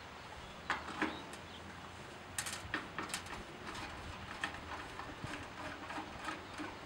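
Screwdriver working the screws of an air-conditioner condenser's wire fan guard: scattered sharp metal clicks and taps, a quick run of them a little past two seconds in.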